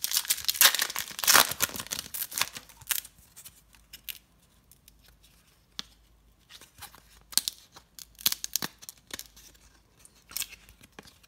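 A trading-card pack wrapper being torn open and crinkled for about the first three seconds, then scattered soft clicks and cracking snaps as a stack of 1999 Skybox trading cards is peeled apart and thumbed through. The cracking comes from 22-year-old glossy cards that have stuck together in the sealed box.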